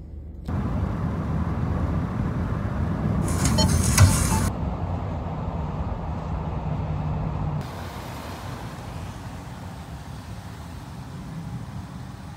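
Minivan driving on the road: steady low engine and tyre rumble, with a louder swell of noise and a sharp knock about four seconds in, then quieter after about eight seconds.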